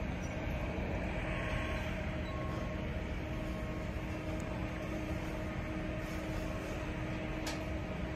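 Steady mechanical drone with a constant hum in it, even throughout, like large machinery running. A faint single tick about seven and a half seconds in.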